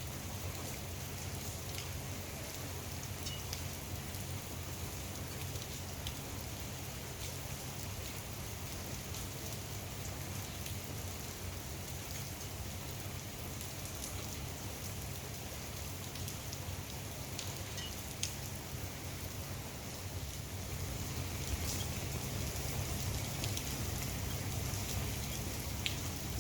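Steady rain falling on a swimming pool's water, an even hiss with scattered sharper drop ticks, over a steady low hum.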